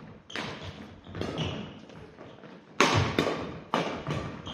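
Badminton doubles rally: sharp racket strikes on the shuttlecock and players' footfalls on the wooden court, echoing in a large sports hall. The loudest hits come close together about three seconds in.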